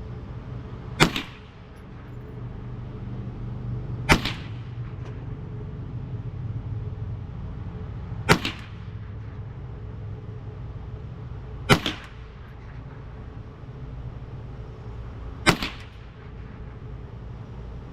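Five single gunshots at slow, aimed intervals about three to four seconds apart, each a sharp crack with a short echo, over a steady low background rumble.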